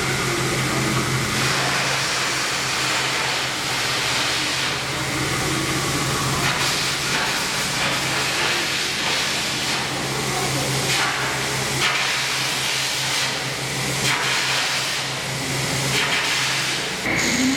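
Milling machine cutting a stamping die: a steady machine hum under a strong, even hiss. The hum changes near the end.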